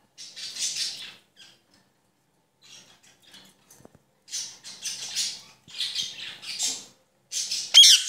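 Female Indian ringneck parrot giving a series of short, harsh, raspy calls, then a loud, shrill squawk near the end.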